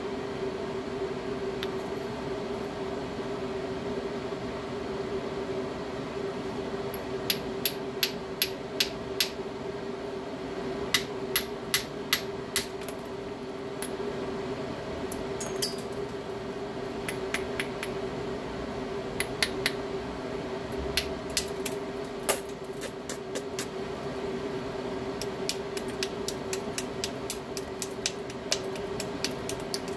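A hammerstone striking the edge of a stone biface in flintknapping: sharp, light clicking strikes in short quick runs. The strikes start about seven seconds in and come more often near the end.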